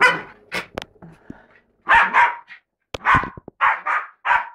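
Bichon Frise barking during play, about eight short barks in a row, with a brief pause after the first second.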